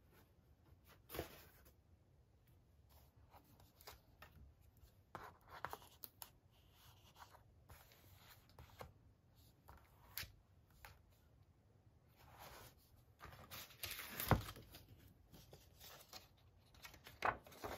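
Paper rustling and sliding, with scattered light taps, as paper pieces are handled and pressed down onto a journal page; one sharper knock comes late on.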